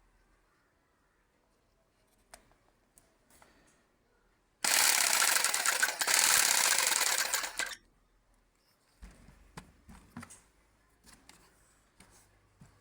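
A woodworking power tool runs loudly for about three seconds, starting and stopping abruptly, with a fast rattling texture. Light clicks and knocks of handling come before and after it.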